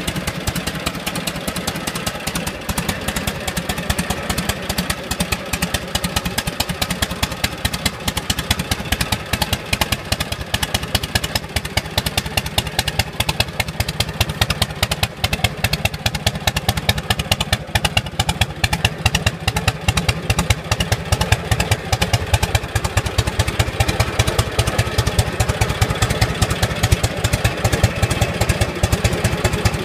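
Harley-Davidson FL Duo Glide's Panhead V-twin running steadily at idle, a continuous train of firing pulses.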